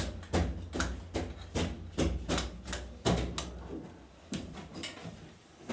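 A quick, irregular run of sharp knocks, about three a second over a low rumble, growing fainter and sparser about halfway through.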